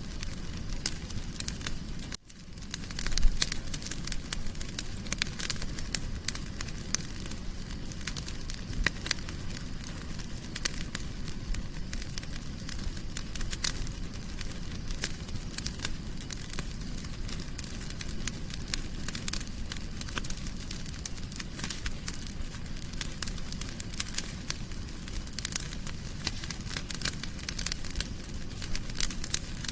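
Fire crackling in a fireplace: frequent sharp pops and snaps over a steady low rush of flame. The sound cuts out for an instant about two seconds in, then comes back louder.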